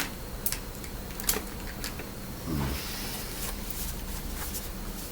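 A few sharp clicks and taps of objects being handled, with a short falling creak about two and a half seconds in, over a steady low hum.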